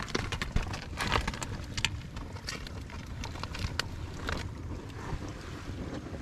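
Wind on the microphone and water slapping against a floating raft, with scattered sharp clicks and rustles over the first four seconds or so.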